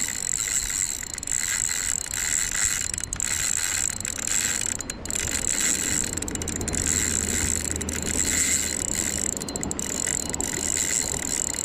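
Spinning reel being cranked steadily, its gears whirring and clicking as line is wound in.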